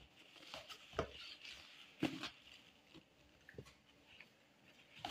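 Hands rubbing and raking steamed couscous in a wide basin to break up the grains as it cools between steamings: a faint rustle of grains with a few soft taps against the bowl, the clearest about one and two seconds in.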